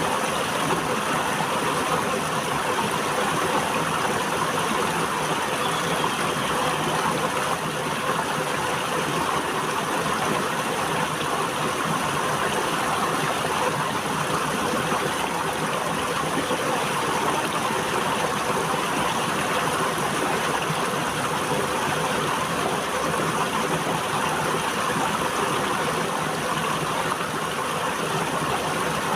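River water flowing over rocks: a steady, unbroken rush.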